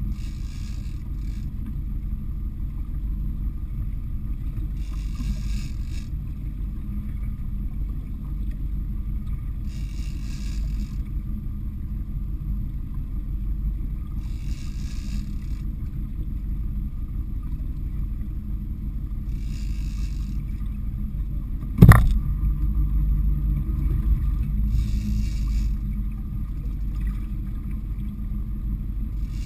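Steady low rumble of a fishing boat running on the water, with a short hiss about every five seconds. A single sharp knock about 22 seconds in is the loudest sound, and the rumble is louder for a few seconds after it.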